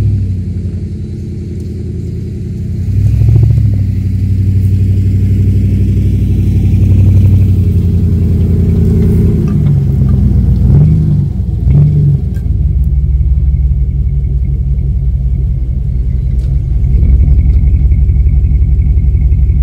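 Dodge Ram 1500 pickup's V8 engine running close by as the truck drives slowly over grass, its note rising and falling a few times around the middle, then settling into a steady low run.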